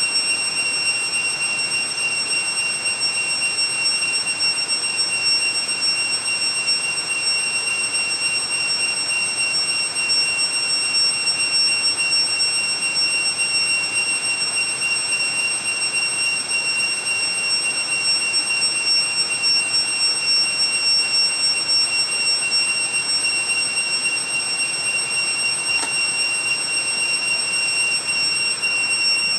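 Steady, high-pitched insect drone over the even rush of a shallow forest stream.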